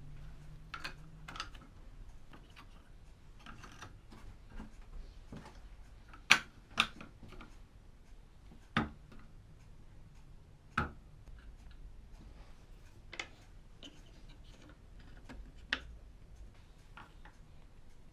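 Sharp wooden clicks and knocks as the parts of a handmade wooden model truck are handled and moved, a loud pair about a third of the way in, then single knocks every two seconds or so, with lighter taps between.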